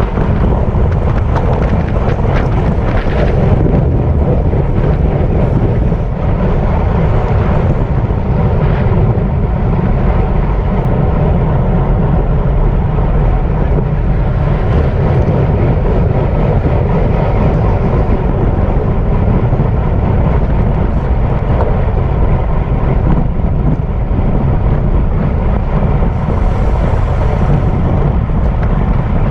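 Wind buffeting the microphone of a camera riding on a racing bicycle at speed: a loud, steady rumble.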